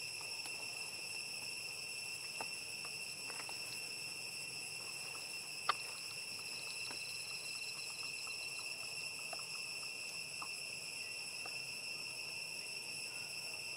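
A steady, high-pitched drone of insects, with scattered faint clicks and one sharp click about halfway through.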